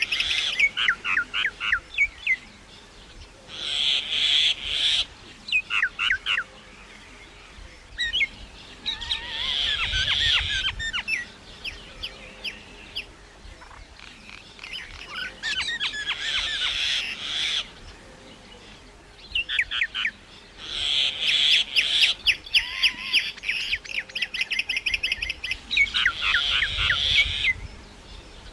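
Myna calling in repeated bouts of rapid, harsh chattering and clicking notes, each bout a second or two long with short pauses between.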